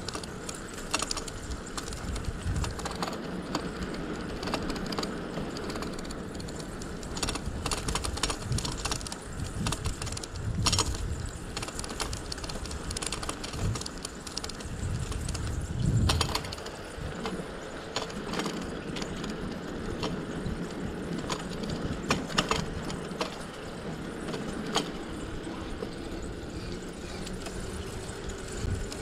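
A bicycle being ridden: irregular clicks and rattles from the bike over a steady rushing noise, with occasional low rumbles. The sharpest clicks come about a third of the way in, around the middle, and about three quarters of the way through.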